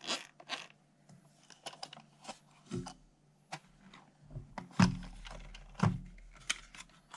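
Handling noise from plastic toy RC cars: scattered light clicks and knocks as the cars are turned over and moved about on a wooden desk, with two louder thumps about five and six seconds in as a car is set down.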